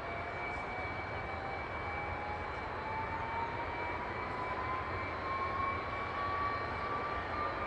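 Jet aircraft engine running: a steady rush with a thin whine that rises slowly and evenly in pitch, and a second steady high tone above it.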